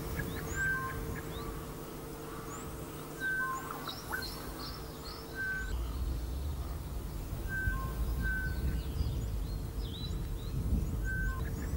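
Birds calling: a short two-note whistle, the first note higher and the second lower, repeated every couple of seconds, with faint quick high chirps among them. Under it is a steady low hum, and a low rumble comes in about halfway through.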